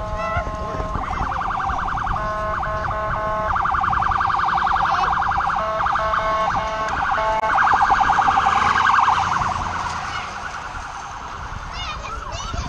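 Electronic siren or alarm sounding, cycling through patterns: a held multi-tone blare, rapid pulsing, chopped beeps and a fast warble, fading after about ten seconds. Wind rumbles on the microphone underneath.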